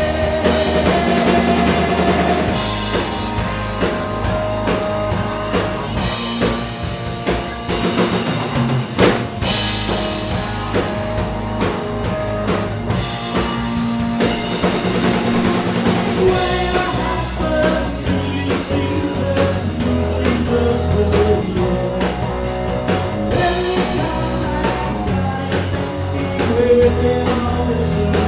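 Live rock band playing: electric guitars, bass and a drum kit keeping a steady beat, with a man singing lead.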